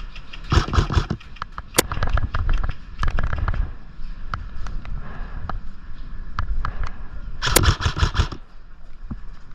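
Airsoft guns firing: scattered sharp pops and clicks, with two denser rattling bursts, one about half a second in and one near the end.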